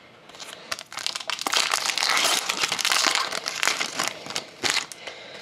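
Foil wrapper of a 2012-13 Fleer Retro hockey card pack being torn open and crinkled by hand as the cards are pulled out: a dense, crackly rustle that builds about half a second in, is loudest in the middle and tails off near the end.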